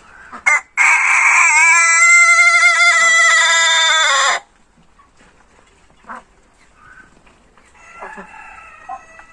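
An Ayam Ketawa (laughing chicken) rooster crows once, a long call of about three and a half seconds whose pitch wavers through the middle and drops slightly at the end. Fainter short calls follow near the end.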